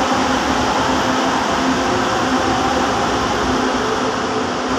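Manila LRT Line 2 electric train pulling away along the far track, with a steady rumble of wheels on rail and a constant low hum.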